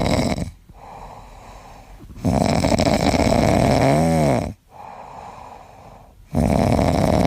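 Heavy snoring in a slow rhythm: long, loud snores of about two seconds each, separated by quieter breaths. The middle snore carries a pitched tone that rises and falls.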